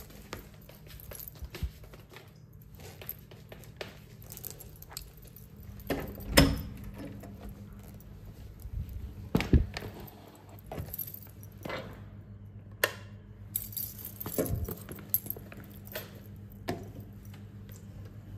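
A ring of keys with a charm jangling and clinking as it is handled and carried, with scattered clicks and a few sharper knocks, the loudest about six seconds in, over a steady low hum.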